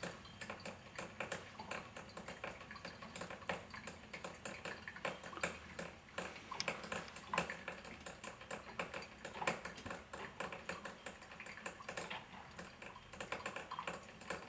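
Vintage Mr. Coffee brewer grinder brewing a pot of coffee: a quiet, irregular crackle of many small pops and clicks as the hot water comes through.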